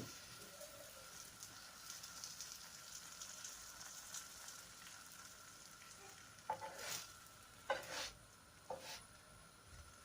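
Oil-brushed pastry sizzling faintly on a hot tajine griddle just after being flipped, with a few light knocks between about six and nine seconds in.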